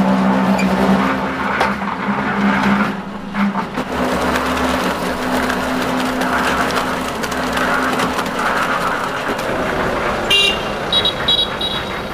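An engine running steadily, with a few short high-pitched tones near the end.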